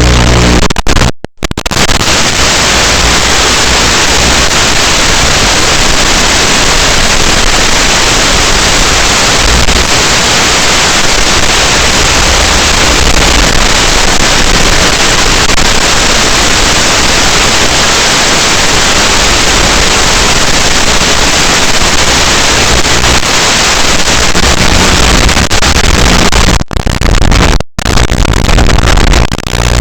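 Loud, steady static hiss like white noise, with two brief dropouts, about a second in and near the end.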